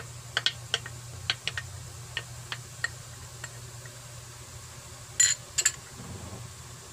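Wooden spoon scraping and tapping ketchup out of a small glass bowl, a string of light clicks and taps, then two sharper knocks about five seconds in.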